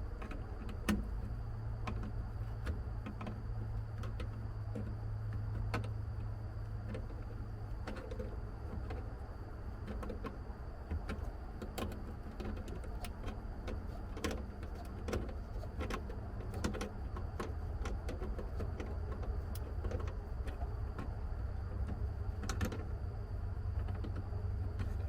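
Scattered, irregular clicks and light taps of hand tools and metal parts as a bracket fastener is tightened, over a steady low hum.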